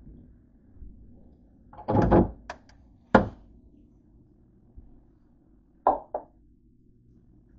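A handful of knocks and thuds from things being handled and set down, about five in all: a longer clatter about two seconds in, a sharp knock a second later, and a quick double knock near the end.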